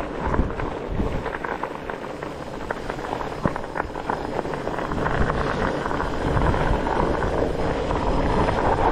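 Studded 27.5 x 4.5 Gnarwahl fat-bike tyres crunching and crackling over ice and snow on a climb, the studs biting into the ice. It gets louder about halfway through.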